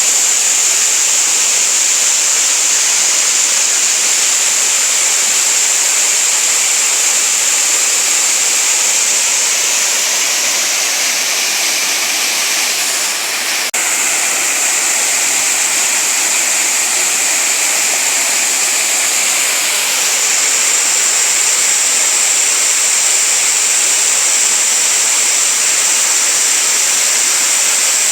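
Waterfall: water falling and rushing as a loud, steady hiss. Its tone shifts slightly about halfway through, with a faint click.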